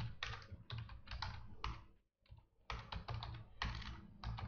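Typing on a computer keyboard: quick runs of keystrokes, with a short pause a little before halfway.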